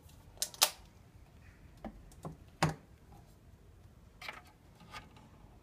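Emco Compact 5 lathe's hinged change-gear cover being swung and handled: a string of about seven sharp clicks and knocks at uneven intervals. A close pair comes in the first second, and the loudest knock comes a little before halfway.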